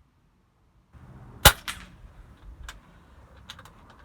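Kral Puncher Breaker .22 PCP air rifle firing a single shot about one and a half seconds in: a sharp crack with a short ring after it. A few faint clicks follow.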